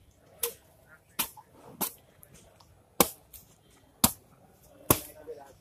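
Asian elephant feeding on palm fronds: a series of sharp cracks and snaps, about six in a few seconds, as it breaks the frond stalks with its trunk.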